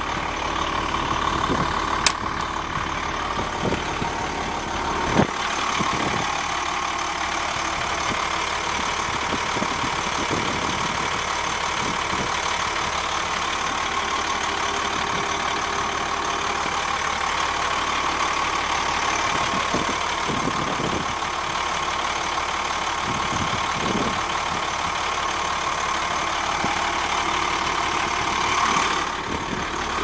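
Rear-mounted diesel engine of a Blue Bird TC2000 school bus idling steadily, with a sharp click about two seconds in and a knock about five seconds in.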